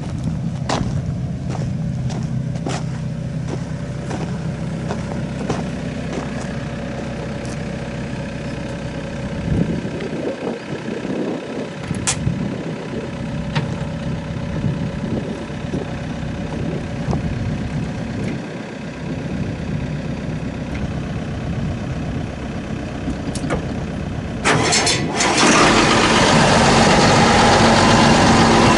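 Heavy machine's engine running steadily, with a few sharp metallic clanks. About 25 seconds in the engine noise grows suddenly louder and stays up.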